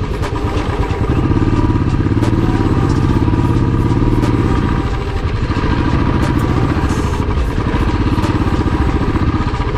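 Royal Enfield Classic 350's single-cylinder engine running while the motorcycle is ridden, with a steady, close-up thudding beat. The engine note rises and falls slightly as the rider works the throttle.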